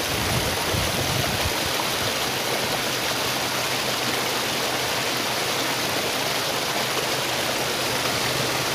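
Steady rush of water flowing over the rocks of a shallow stream. Underneath it, from about two seconds in, the low steady hum of a Toyota Fortuner's engine as the SUV edges down the bank into the water.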